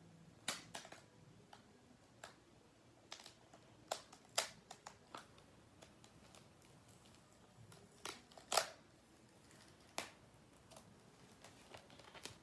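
Paper and sticky tape being handled: scattered faint crackles, taps and short peeling sounds at an uneven pace, the loudest about four and eight and a half seconds in.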